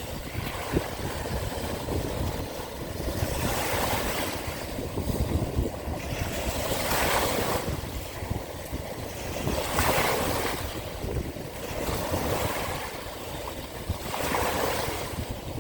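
Sea waves washing in, swelling and falling back every three to four seconds, with wind buffeting the microphone and a low rumble.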